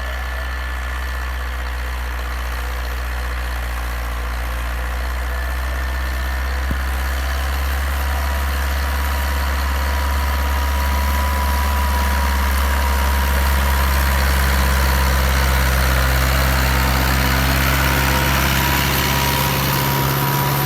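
Massey Ferguson 274S tractor's diesel engine running steadily under load, its sound growing louder over the first two thirds and then holding.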